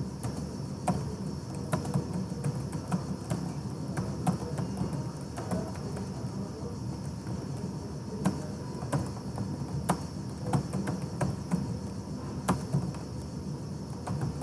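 Computer keyboard keys clicking at an irregular typing pace, a few keystrokes a second, over a steady low background hum.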